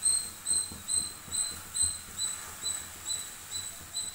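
A short, high chirp repeating evenly about twice a second, each chirp at the same pitch.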